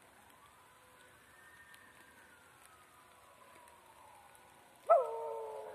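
A faint, drawn-out wail that rises and then slowly falls, then about five seconds in a dog breaks into a loud howl that slides gradually down in pitch.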